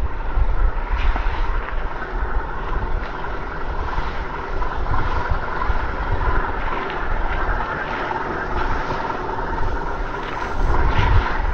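Electric motor and gear drivetrain of a Traxxas TRX-6 6x6 RC crawler whining steadily as it drives, the pitch wavering slightly with throttle, over an uneven low rumble.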